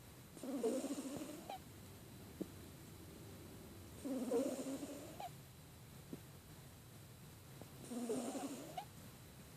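A pet snoring while congested with a cold. There are three snores about four seconds apart, each lasting about a second.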